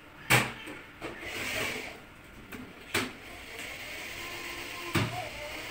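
Three sharp knocks about two and a half seconds apart, the first the loudest, with a short rasping scrape after it: hardware being fitted inside an aluminium kitchen cabinet.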